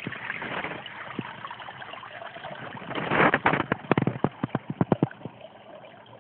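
Water trickling steadily into a small garden pond. About three seconds in, a short rush of noise and then a quick string of irregular knocks and thumps, louder than the water, dying out about two seconds later.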